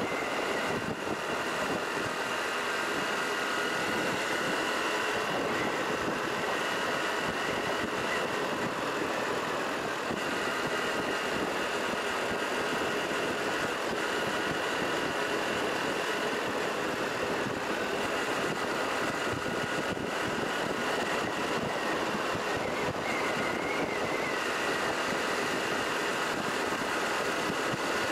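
Steady motor-vehicle engine and road noise.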